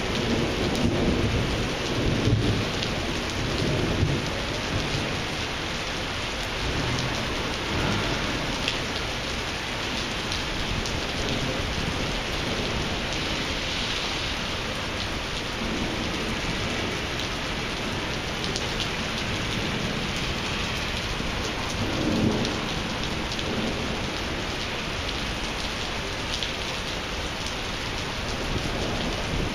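Thunderstorm: steady rain falling on pavement, with low rumbles of thunder in the first few seconds and again about two-thirds of the way through.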